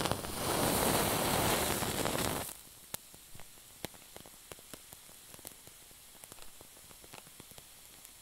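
Oil torch wick being lit with a lighter: a steady rushing hiss for about two and a half seconds as the flame catches, cutting off suddenly. After it the flame burns with faint scattered crackles.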